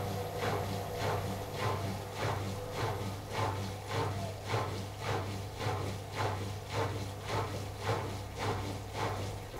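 AEG Lavamat washing machine's motor turning the laundry drum at a steady low speed, with a hum and a regular swish-and-knock of the load about twice a second. The drum stops just before the end.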